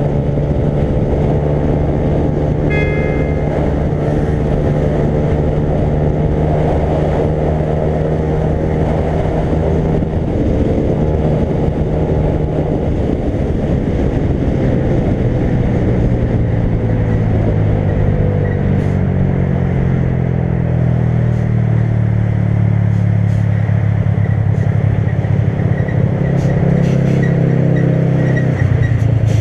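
Motorcycle engine running on the move, with wind rushing over the microphone. About halfway through, the engine note falls as the bike slows, then holds at a lower pitch. There is a short high tone about three seconds in.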